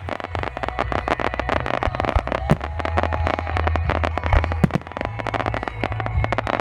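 Fireworks display going off: a dense, rapid run of crackles and pops over a steady low rumble.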